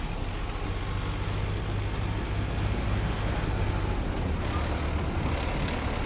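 Rhaetian Railway ABe 8/12 Allegra electric multiple unit rolling slowly into the station: a steady low rumble of wheels and traction equipment under an even hiss.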